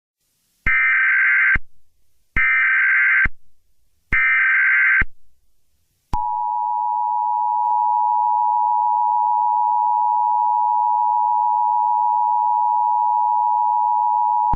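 Emergency Alert System tones. First come three SAME header bursts of data tones, each just under a second long and spaced about 1.7 s apart. These are followed by the EAS two-tone attention signal (853 and 960 Hz together), held steady for about eight and a half seconds. Here the tones introduce an Emergency Action Notification.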